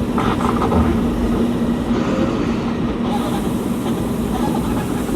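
Volkswagen Volksbus 17.230 EOD bus engine running at a steady speed, with light rattles over the rumble.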